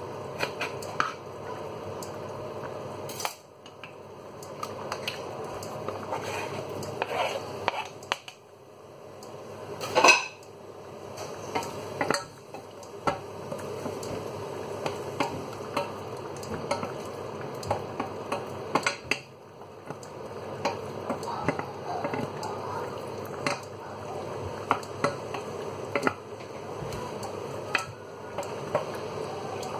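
Pots-and-pans clatter: utensils clinking and scraping against a stainless-steel saucepan as chopped tomatoes are added to garlic and oil and stirred. Scattered clicks with one louder knock about ten seconds in, over a steady hiss from the cooking pans.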